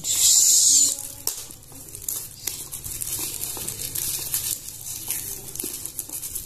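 Black plastic parcel wrapping and packing tape being torn and pulled open by hand: a loud ripping tear in the first second, then intermittent crinkling and crackling of the plastic.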